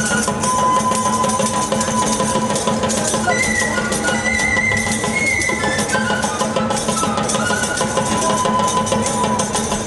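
Aztec dance music: steady drumming with the dense shaking of dancers' seed-pod leg rattles, and a high piping melody that rises and falls briefly in the middle.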